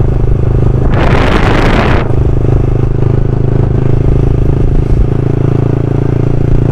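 Motorcycle engine running steadily at a constant cruising speed. About a second in, a rush of noise lasts for about a second.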